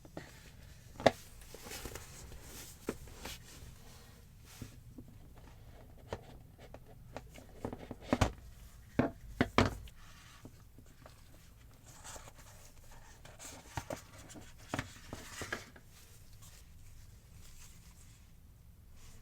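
Packaging being handled during an unboxing: scattered clicks, taps and rustles of cardboard and plastic, with a few louder knocks about eight to ten seconds in.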